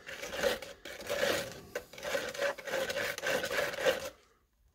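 A stir stick scraping round a cup of wet Cement All mixed with black dye, in quick repeated strokes. The stirring stops about four seconds in.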